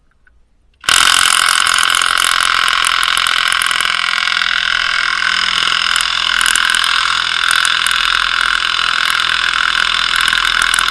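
Cordless impact wrench hammering continuously, starting about a second in, as it breaks loose a suspension bolt torqued to 173 lb-ft.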